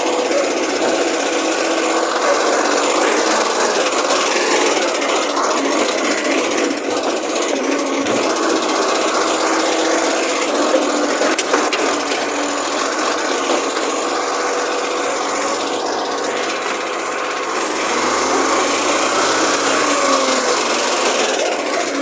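Garbage truck's diesel engine running close by, a steady, rough mechanical noise with a faint whine that changes a little near the end.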